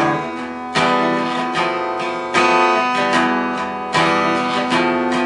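Instrumental passage of a song: acoustic guitar strumming chords, with a fresh chord struck about every one and a half seconds.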